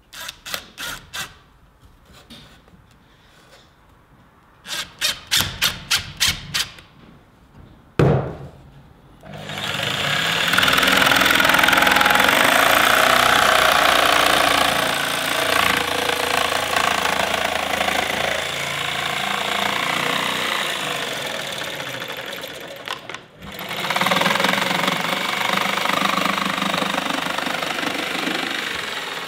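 Cordless impact driver driving screws in short hammering bursts: a few at first, then a quicker run of about seven. After a thump, a Bosch PST 900 PEL corded jigsaw starts and saws through a wooden board, stopping briefly about two-thirds of the way through and then cutting on.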